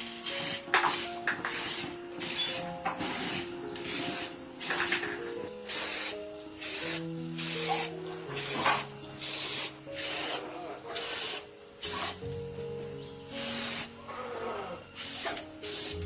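Repeated short bursts of hissing spray, a little under one a second, over background music with a melody.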